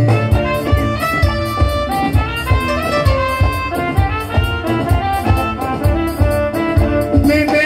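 Live band playing an instrumental interlude with no singing: a violin-led melody over drum kit, bass guitar and keyboard, with a steady beat.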